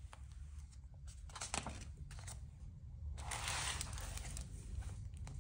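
Faint handling of a picture book's paper pages, a few soft rustles and taps, then a longer papery swish a little past three seconds in as the book is closed.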